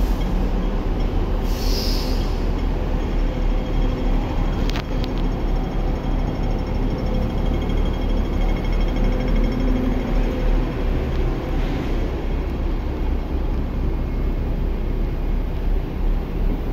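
City street traffic: cars and a bus passing close by, a steady rumble of engines and tyres.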